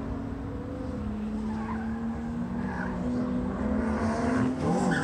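A 2016 Porsche Boxster Spyder's 3.8-litre flat-six revving up and down as the car is driven hard through tight cone turns. It grows louder toward the end as the car approaches, with brief tyre squeals.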